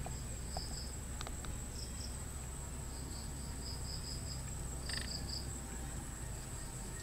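Crickets trilling steadily at a high pitch, with short high chirps in quick groups of two to four over a low steady hum.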